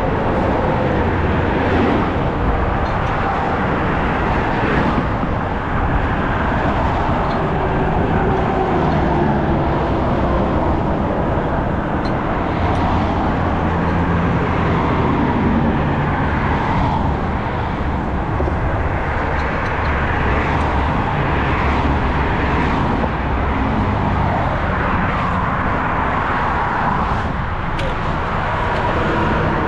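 Steady motor-vehicle road noise: engine and tyres rumbling continuously, with a faintly wavering pitched hum.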